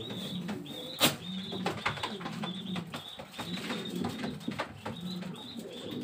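Domestic pigeons cooing in a loft, with low wavering coos throughout, over rapid high chirps from small birds. A single sharp click comes about a second in.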